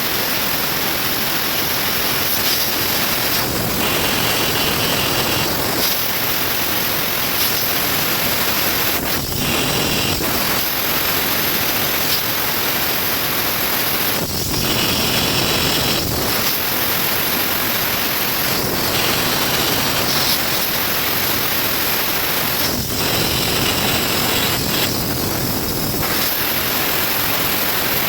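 Cold gas spray gun blasting a steady, loud hiss of compressed gas as it sprays metal powder onto an air-conditioning pipe, its tone changing briefly every few seconds.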